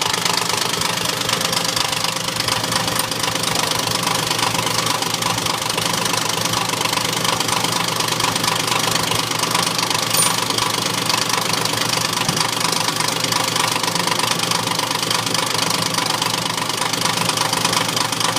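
Motorpal in-line diesel fuel injection pump running steadily on a test bench, with an even mechanical clatter.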